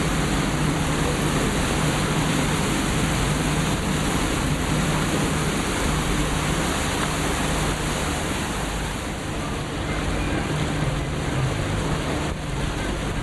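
Batobus river shuttle boat under way: its engine runs with a steady low hum beneath a constant rush of water.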